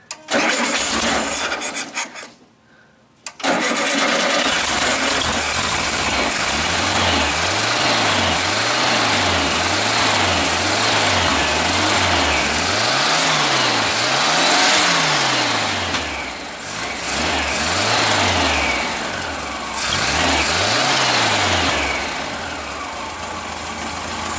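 The air-cooled flat-four of a 1974 VW Super Beetle, freshly rebuilt, makes a short burst and stops, then starts about three seconds in and keeps running. Its revs are raised and dropped again and again by hand at the carburetor throttle, rising and falling about once a second.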